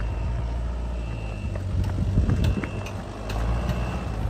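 Mitsubishi Pajero off-roader's engine running with a steady low hum, with scattered clicks and knocks and a brief louder rise about two seconds in.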